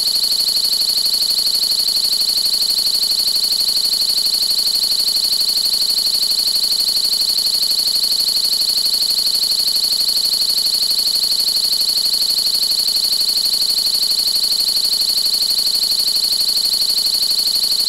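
Synthesized meditation noise: a steady high-pitched electronic tone with a fast, even pulse, and a fainter, higher band of hiss above it.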